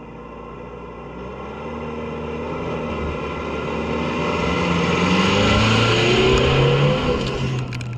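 Nissan Frontier pickup engine accelerating as the truck pulls away on a dirt trail. It grows louder and rises in pitch to a peak about six to seven seconds in, then drops back near the end.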